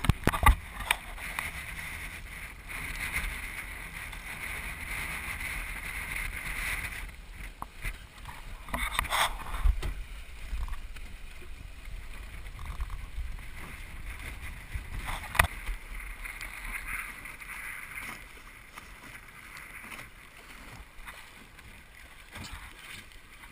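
Water rushing and splashing along the hull of a small wooden sailboat sailing fast through choppy water, with wind buffeting the microphone. A few sharp hits of spray or chop against the boat come about half a second in, again around the middle, and once more about two-thirds of the way through.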